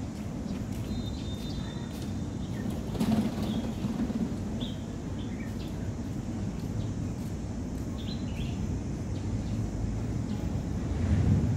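Outdoor ambience: wind rumbling on the microphone, swelling twice, with a few short, faint bird chirps.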